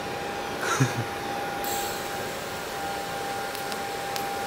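TIG welding arc on thin-walled metal tubing at a low setting: a steady hiss with a faint high, steady whine, the hiss growing brighter about a second and a half in.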